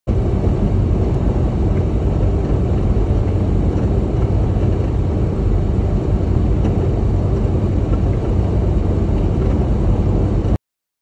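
Steady low rumble of a semi truck driving on the road, engine and road noise together; it cuts off suddenly near the end.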